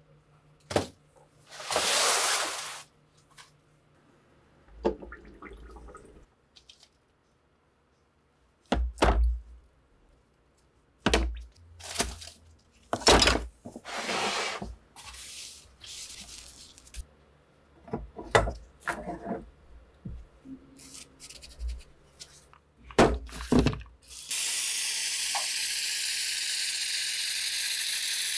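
Rusty steel rifle parts knocking and clattering as they are handled and set in a plastic tub of liquid, with some splashing. About 24 seconds in, a hand pump sprayer starts a steady hiss that lasts about four seconds as it mists liquid onto the rusty barrel.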